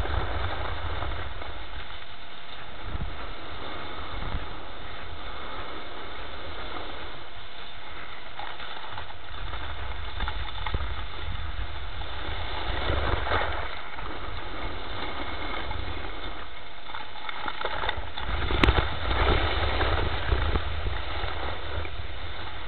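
Wind rumbling on the microphone while riding downhill on snow, with the hiss and scrape of edges on packed snow swelling during turns. A sharp click comes about three-quarters of the way through.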